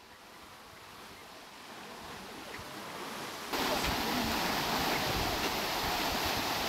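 Steady rushing, splashing water. It grows gradually louder, then jumps up abruptly about three and a half seconds in and holds.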